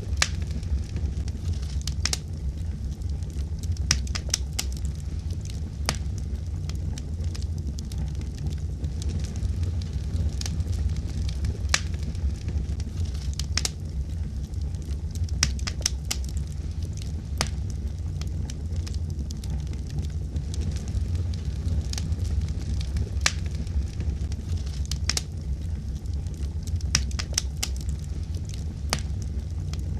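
Wood fire burning: a steady low rumble of flames with sharp, irregular crackles and pops, several every few seconds.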